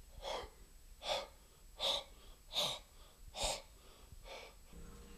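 A man taking sharp, rhythmic breaths through his open mouth, six in a row at a steady pace of a little more than one a second, the last one fainter.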